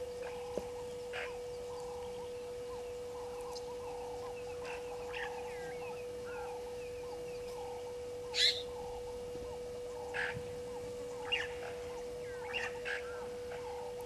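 Wild birds calling: many short chirps and calls scattered throughout, the loudest one about eight seconds in. A steady faint hum runs underneath.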